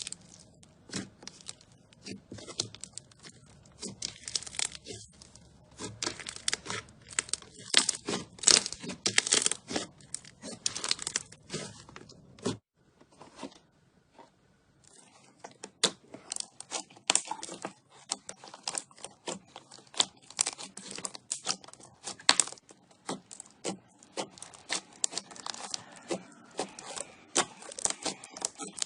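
Slime being squeezed and pressed by hand close to the microphone, giving dense, irregular crackling and popping; it stops for about two seconds a little past twelve seconds in, then starts again.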